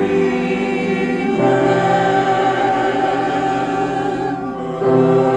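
A choir singing slow, sustained chords, moving to a new chord twice.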